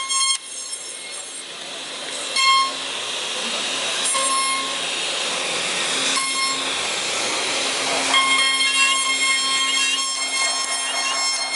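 Spindle of an LH-5101-S CNC router running at high speed, its bit carving a relief into a wooden board: a steady high whine over the hiss of the cut. The whine fades for a few seconds mid-way while the cutting hiss swells, then returns strongly about eight seconds in.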